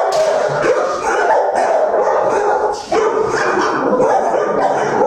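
Dogs in shelter kennels barking and yipping over one another in a continuous din, with a brief lull near the middle.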